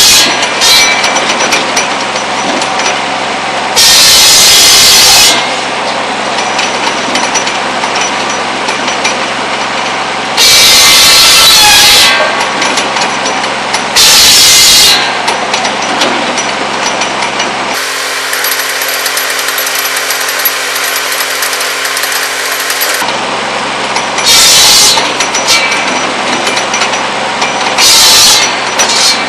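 Buzz saw (cordwood saw) running steadily, its big circular blade biting through pole wood in loud bursts of about a second or more each, five times, a few seconds apart, as stick after stick is cut to firewood length.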